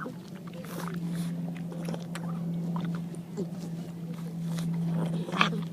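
A pug chewing watermelon: irregular smacking clicks, with a louder smack about five seconds in, over a steady low hum.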